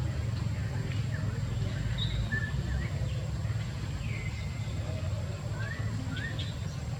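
Scattered short high-pitched animal squeaks and chirps, some sliding upward in pitch, over a steady low rumble.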